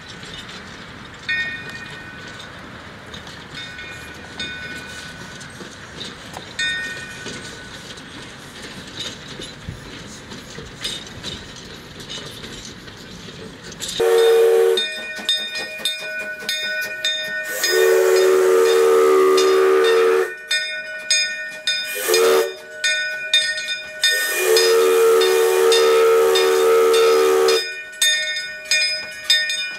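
Henschel steam tank locomotive blowing its steam whistle in a run of blasts about halfway through, two of them long and two short, then hissing as it rolls past close by with clicks from its running gear. Before the whistling, the train is heard only faintly from afar.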